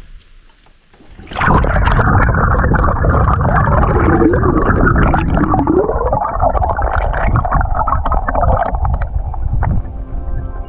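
Muffled churning and gurgling of water, as picked up by an action camera submerged in a spring, starting about a second and a half in.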